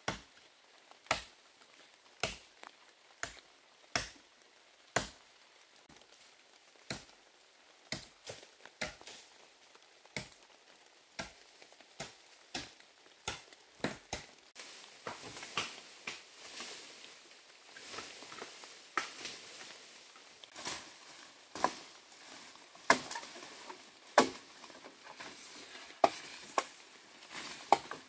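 Machete chopping bamboo: sharp separate blows about once a second, some much louder than others, with a steady rustling of leaves joining about halfway through.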